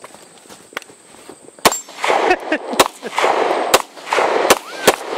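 Beretta M92 9mm pistol firing four shots about a second apart, with steel targets ringing after the hits. The pistol is cycling shot after shot even though it is caked in dust and dirt.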